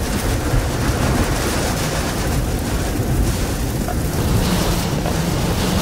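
Violent storm wind roaring and buffeting the microphone, a steady heavy rumble with hiss as dust and debris blow past.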